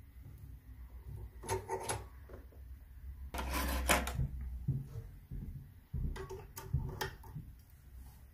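Handling noise at a small steel bench vise holding a brass key blank and brass lock cylinder. A few sharp metal clicks come about one and a half seconds in, a louder scraping rustle at about three and a half seconds, and another cluster of clicks and knocks six to seven seconds in, over a low hum.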